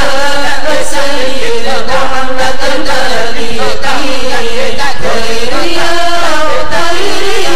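Islamic devotional chanting (dhikr): voices sing long, gliding melodic lines with no instruments, loud and unbroken.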